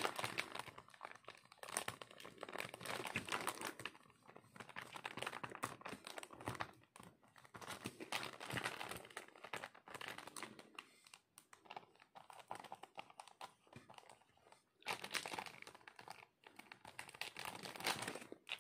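Plastic packaging of a diamond-painting kit crinkling and rustling as it is held and written on with a marker. The sound comes in irregular bursts of faint crackles with short pauses between them.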